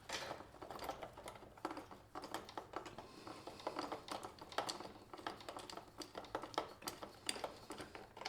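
Irregular small clicks and taps of hand tools and a bolt being worked into a motorcycle headlight guard mount.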